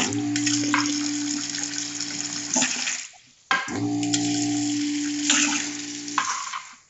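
LT130 CNC quantitative liquid filling machine running automatic fill cycles: its pump hums steadily while liquid streams out of the nozzle with a hiss. It runs for about three seconds, stops for about half a second (the set waiting time), runs a second fill, and stops again near the end.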